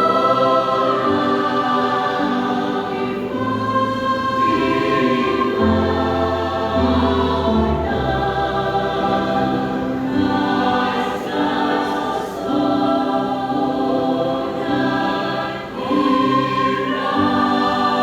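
Church choir singing in several parts, holding long chords that change every second or two over a steady bass line.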